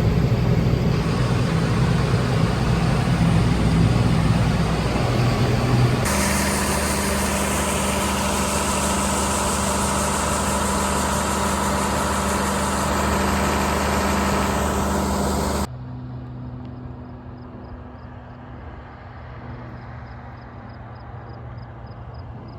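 Farm machinery engines running steadily while a combine unloads grain on the go into an auger wagon. The sound changes abruptly twice, about six seconds in and again near sixteen seconds, and is much quieter after the second change.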